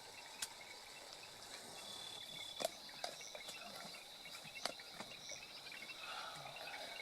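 Bush ambience with a steady high insect trill, broken by a few short sharp clicks or cracks, the loudest a little under three seconds in.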